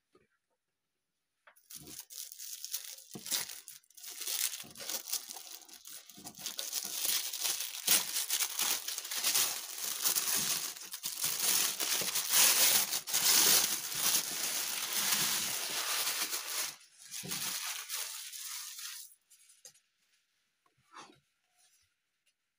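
Thin white wrapping paper being torn and crumpled as it is pulled off a small cardboard box: a long stretch of rustling and ripping that starts about two seconds in, is loudest in the middle and dies away a few seconds before the end.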